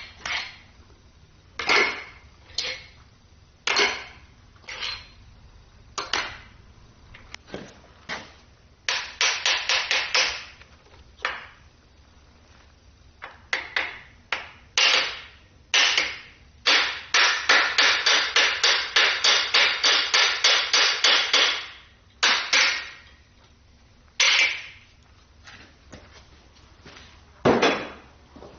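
Air impact wrench hammering the main bearing cap bolts loose on a Ford 351 Windsor V8 block: a short burst about nine seconds in and a longer run of about four seconds past the middle. Single metal clanks and knocks are scattered between, as the caps and tools are handled.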